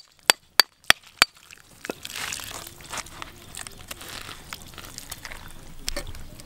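A knife being driven into a whole green jackfruit: five sharp strikes on the back of the blade, about three a second, then a wet crackling and tearing as the rind and flesh are pried apart.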